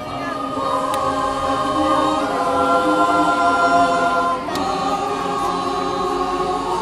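A large mixed choir of men and women singing long held chords, the harmony changing about four and a half seconds in.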